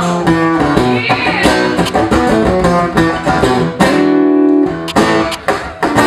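Acoustic guitar played solo: a rock-style lead line of quick picked notes, with a chord left ringing about four seconds in.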